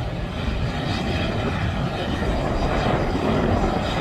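Helicopter running on the ground, getting ready to take off: a steady engine and rotor noise.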